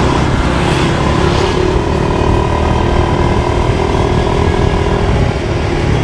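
A motor vehicle driving along a road: a steady, loud rumble of engine and road noise.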